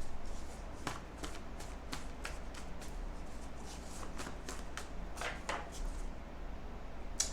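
A deck of oracle cards being shuffled by hand: a run of soft, irregular card clicks and slaps.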